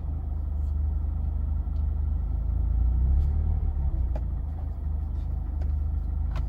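2019 Mazda Miata ND2's four-cylinder engine idling roughly, the idle swelling and sagging with no throttle input. This surging idle is a symptom of the misfire and limp-mode fault.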